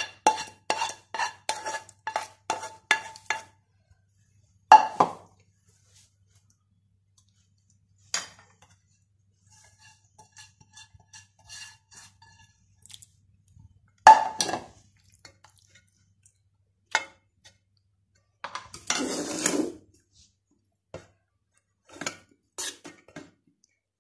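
A spoon knocking and scraping against metal cooking pots: a quick run of ringing clinks, about three a second, for the first few seconds, then single clanks and a longer scrape at intervals.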